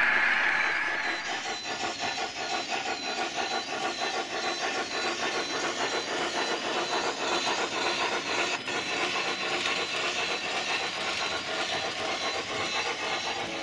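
Model trains running on the layout. In the first second there is loud rolling noise as wagons pass close, and it fades away. After that comes a steady, evenly repeating beat, the chuff of a DCC sound-fitted model steam locomotive.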